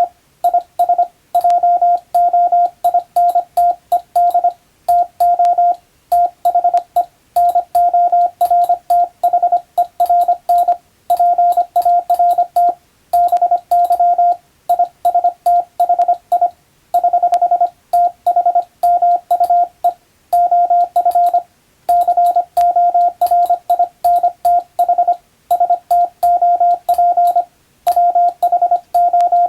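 Morse code (CW) sent as a single steady beeping tone, switched on and off in short dots and longer dashes with gaps between letters and words. The text is English telegram practice copy.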